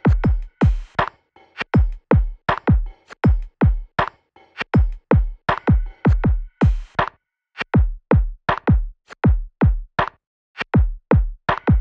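Electronic background music: a drum-machine beat of deep kick drums, each hit dropping in pitch, in an uneven syncopated pattern with short gaps and little else over it.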